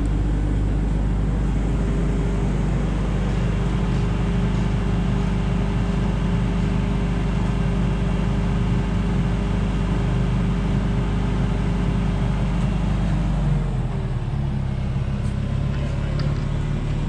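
Heavy 40,000–60,000 lb forklift's engine running steadily under load; its note changes and drops lower about fourteen seconds in.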